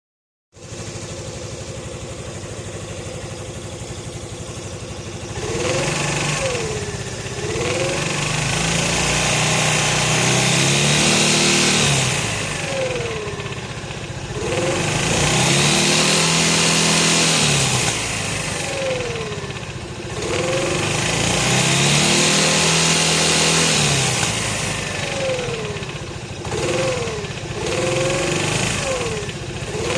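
Kymco Xciting 400 scooter engine idling steadily, then revved up and let fall back about five times, with a couple of quick blips near the end. The owner flags it as an abnormal engine noise.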